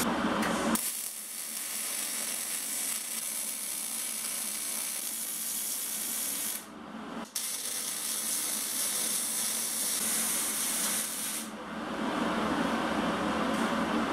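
MIG welding arc on sheet steel, crackling and hissing steadily as a seam is laid. The arc breaks off briefly about seven seconds in, starts again, and stops about three seconds before the end.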